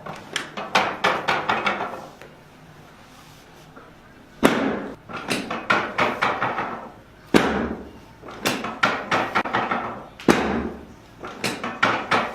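Chiropractic adjusting equipment knocking during an adjustment. It comes in about four bursts a few seconds apart, each a loud sharp knock followed by a run of quicker, fainter knocks.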